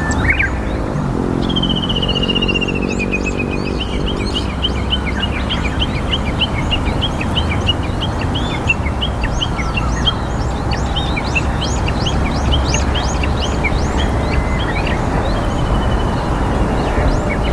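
Small songbirds chirping repeatedly, with a short falling trill about two seconds in, over a steady low rumble of wind or distant traffic. A low, engine-like hum can be heard in the first few seconds.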